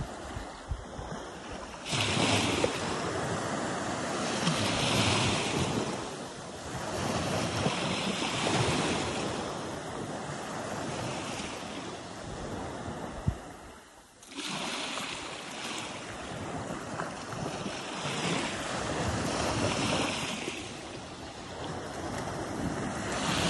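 Small sea waves lapping and washing over the sand at the shoreline, swelling and falling back every couple of seconds. The sound drops away briefly about halfway through.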